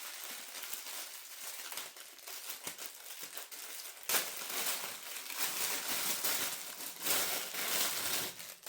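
Packaging crinkling and rustling as a gift is unwrapped by hand, with louder surges about four seconds in and again near the end.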